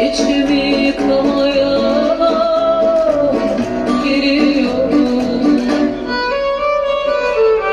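Music with singing over string instruments, a held vocal melody with violin and plucked strings.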